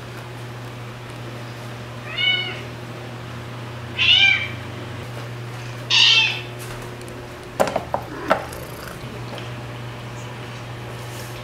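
A domestic cat meowing three times, short calls about two seconds apart, the second and third louder than the first. A few quick sharp clicks follow soon after.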